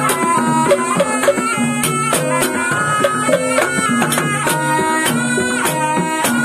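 Classic ebeg gamelan ensemble playing. A slompret (Javanese shawm) carries a wavering reedy melody over repeated kendang drum strokes and steady gong and kenong notes.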